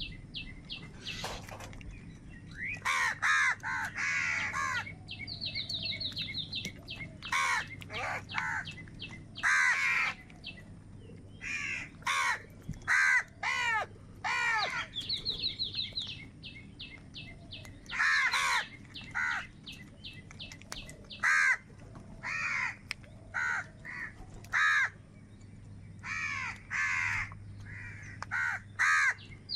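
Crows cawing repeatedly, harsh calls coming one after another and sometimes overlapping, as from several birds.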